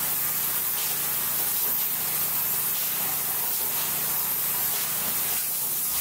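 Spray foam insulation gun hissing steadily as it sprays polyurethane foam, with a faint low hum beneath.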